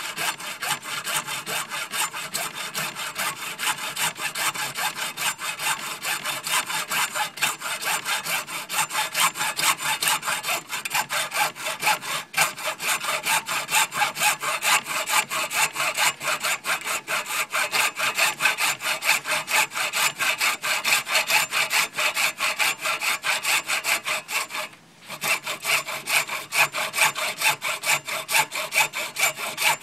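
Hacksaw cutting through a clamped 3/4-inch PVC pipe in quick, even back-and-forth strokes, stopping once briefly near the end.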